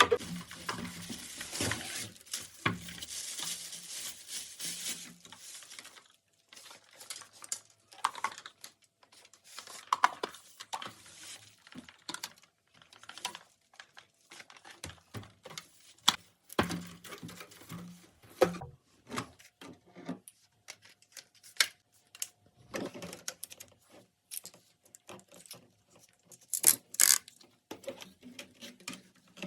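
A vacuum cleaner being handled: scattered clicks and knocks throughout, with a steady hiss and low hum for about the first five seconds.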